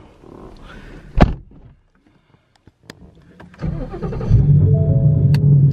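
A car door thumps shut, and a few seconds later the Whipple-supercharged 5.0 V8 of a Mustang GT cranks, catches and settles into a steady idle. Short stepped chime tones sound over the idle near the end.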